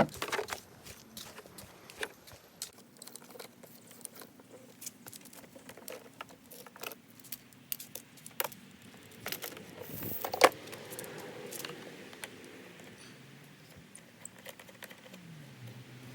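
Hose fittings and couplings being handled and connected to an electric pressure washer: scattered metallic clicks, knocks and rattles, with a sharp clack about ten seconds in.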